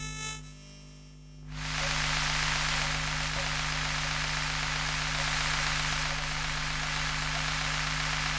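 Electromagnetic-field pickup of an old Sony CD player reading data: faint electronic tones at first, then about a second and a half in a steady static hiss with a low hum sets in and holds.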